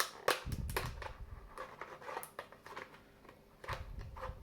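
Scissors cutting into an empty plastic bottle: irregular sharp snips and crackles of the thin plastic, with a couple of dull bumps as the bottle is handled.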